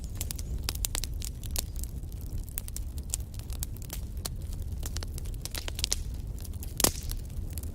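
Wood fire burning in a fireplace, crackling with many quick sharp pops and snaps over a steady low rumble of the flames, one louder pop near the end.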